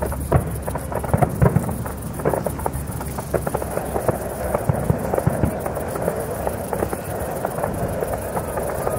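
Aerial fireworks bursting in a display: a continuous run of sharp bangs and crackling pops, densest about a second and a half in and again about five seconds in.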